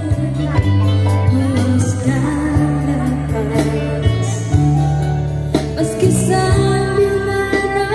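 A woman singing a pop song with a band: guitars and percussion behind her voice.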